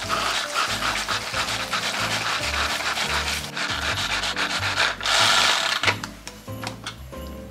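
Pull-cord manual food chopper being yanked over and over, its cord whirring and blades rasping through vegetables in the plastic bowl. The strokes are loudest just after five seconds and ease off about a second later.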